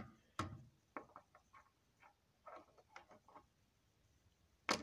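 Light plastic clicks and taps of small LEGO models being handled and set against each other on a desk, scattered and irregular, with a sharper click near the end.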